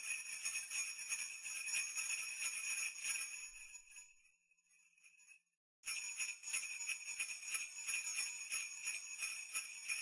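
Background music with jingling bells. It fades out about four seconds in, drops to silence for under two seconds, and comes back abruptly.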